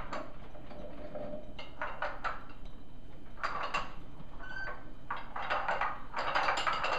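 Vacuum cleaner being pushed over spilled cereal, with cereal pieces rattling and clattering in irregular bursts.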